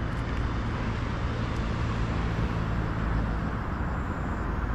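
Steady rumble of road traffic, with a low vehicle engine hum through the first three and a half seconds.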